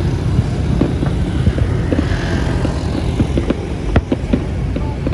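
Fireworks going off: a dense, irregular run of pops and bangs over a steady rumble, with a brief hiss about two seconds in.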